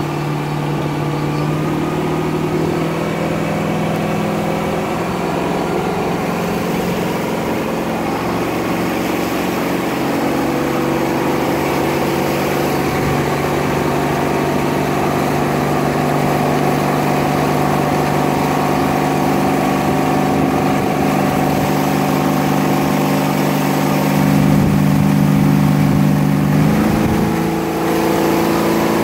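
Parasail boat's engine running steadily, its pitch shifting a little a few times and stepping up after a brief dip near the end.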